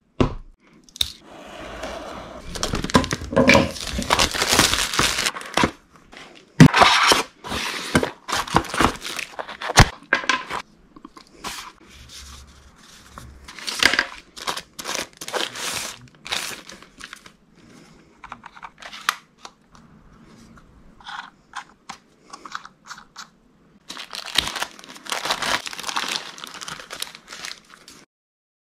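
Drone packaging handled by hand: plastic and paper wrappings tearing and crinkling, and cardboard box parts rustling and sliding, in several irregular stretches with a few sharp knocks.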